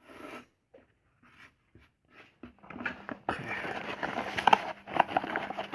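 Hands handling a multitool's packaging: scattered small clicks and rustles at first, then from about halfway a busier run of crackling rustles and sharp little clicks.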